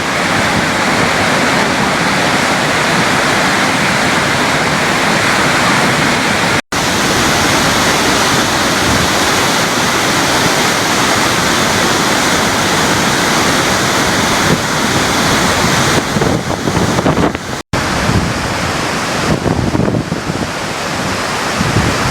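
Steady, loud roar of a large waterfall: a dense rushing noise with no distinct tones. It breaks off for an instant twice and grows rougher and more uneven in the last few seconds.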